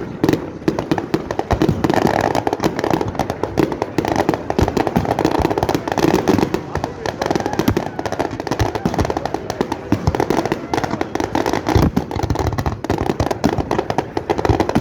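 Fireworks and firecrackers going off in a dense, continuous barrage of rapid cracks and pops, with no let-up.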